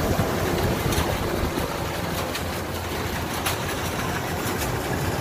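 Kubota DC105X combine harvester's diesel engine and threshing machinery running steadily, with a few brief sharp clicks.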